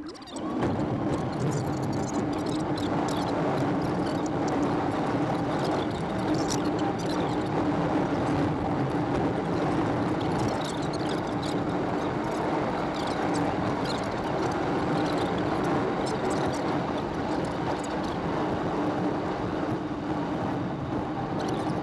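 Steady road and wind noise from a car driving at highway speed, with a constant low drone; it comes in abruptly just after the start.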